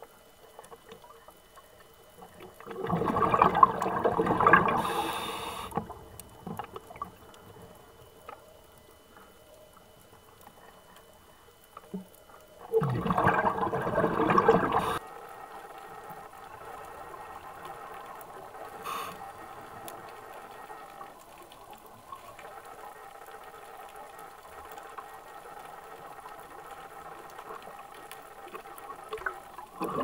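Underwater recording of a scuba diver's regulator exhaling: two gushes of bubbles, each about two and a half seconds long and about ten seconds apart. Between them is a faint steady underwater hum.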